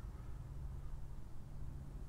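Quiet outdoor background: a steady low rumble with no distinct event.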